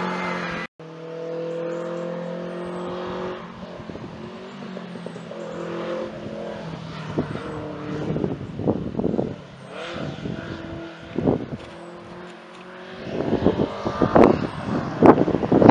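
Competition car engines on a hill climb. One car is heard revving up and dropping back through its gears as it climbs away, then another car approaches and grows louder over the last few seconds, with sharp pops over its engine note.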